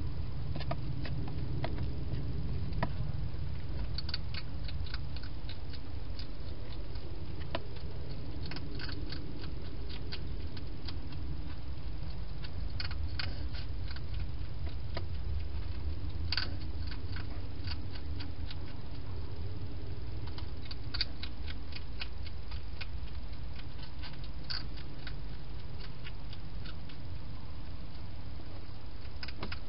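Hedgehog eating from a bowl inside a plastic feeding box: clusters of sharp crunching clicks every few seconds over a steady low hum.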